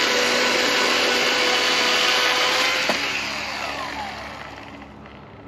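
Gas chainsaw with a new chain running at full throttle, cutting into a fallen tree trunk that turns out to be rotten. About three seconds in, the throttle is released and the engine winds down toward idle.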